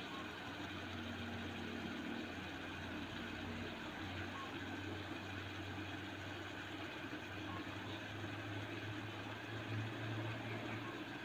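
Mixed vegetables simmering under the glass lid of an electric skillet: a steady low hum with a faint hiss.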